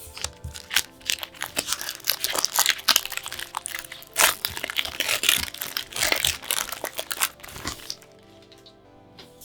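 Crinkly plastic packaging being handled and torn open, a dense run of crackles that stops about eight seconds in. Soft background music runs underneath.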